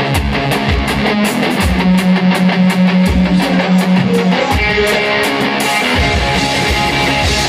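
Live rock band playing: electric guitar over a drum kit keeping a steady beat, with a low note held for long stretches.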